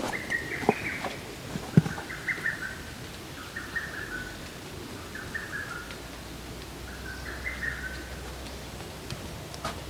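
A songbird repeating a short chirping phrase about every one and a half seconds. A few sharp taps fall in the first two seconds, the loudest about two seconds in.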